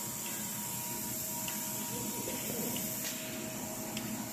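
Steady workshop hum and hiss with two constant tones, and a few faint clicks as a coating thickness gauge's probe is set down on the epoxy-coated steel flange.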